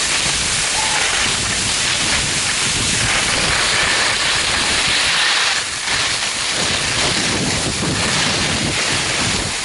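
Wind rushing over a handheld camera's microphone together with the steady hiss of skis sliding over snow on a downhill run, easing briefly a little past halfway.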